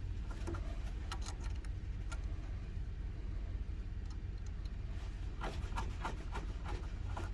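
Small clicks and ticks of a key being repositioned in the clamp of a key decoding and cutting machine, a few scattered ones and then a quick cluster about five seconds in, over a steady low hum.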